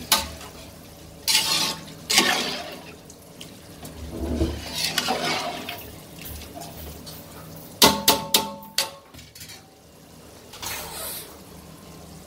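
A metal ladle stirring soaked rice and water through paneer biryani masala in a large aluminium pot: several separate sloshing swishes of liquid, with a quick run of metallic clinks of the ladle against the pot about eight seconds in.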